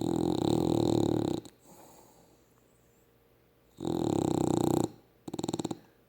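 A sleeping dog snoring: two long rattling snores about four seconds apart, then a shorter fluttering one near the end, with faint breathing between them.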